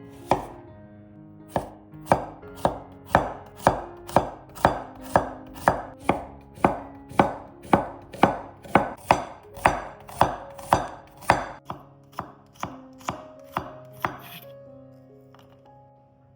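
Kitchen knife chopping on a cutting board, a steady run of cuts about two a second that stops shortly before the end, with soft background music underneath.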